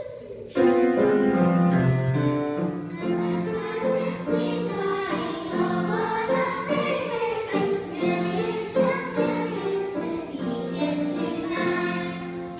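Children's choir singing, starting abruptly about half a second in.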